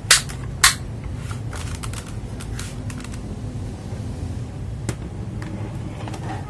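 Objects being handled and set down on a desk: two sharp clacks in the first second, then a few soft taps and knocks, over a steady low hum.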